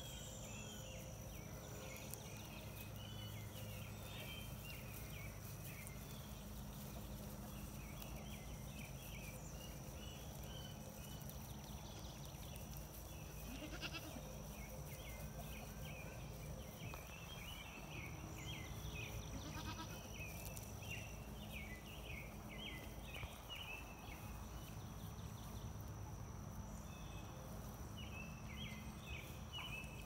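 Pygmy goats in a farmyard, bleating about twice, around the middle of the stretch, among steady chirping from birds.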